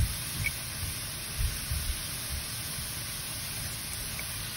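Chopped onions and spices sizzling steadily in oil in a nonstick pan, with a few dull low bumps in the first two seconds.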